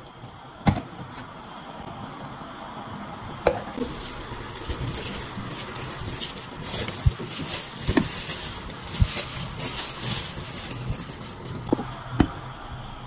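Plastic wrap crinkling and rustling as a ball of starch fufu is unwrapped onto a ceramic plate, a dense crackle through the middle of the stretch. A few sharp knocks of dishware on the table are scattered through it, with one near the end as a glass pot lid is handled.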